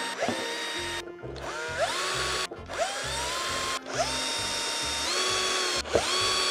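Small electric drill fitted with a half-millimetre micro drill bit, boring holes through cardboard puzzle and canvas. It is switched on and off about five times; each time the motor spins up in a rising whine, holds a steady pitch, then cuts out.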